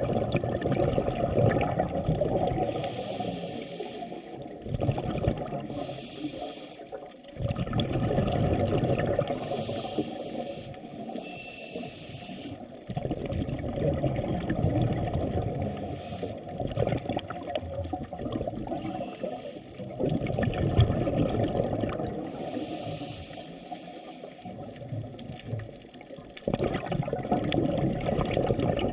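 Water rushing and sloshing in surges that swell and fade about every six to seven seconds, with a dull, low rumble.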